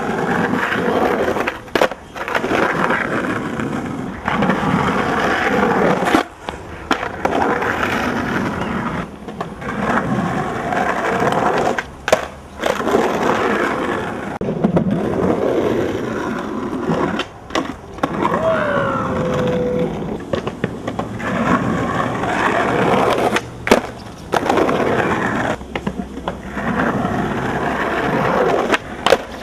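Skateboard wheels rolling over a rough surface, with sharp clacks of the board hitting down every few seconds as riders pop and land.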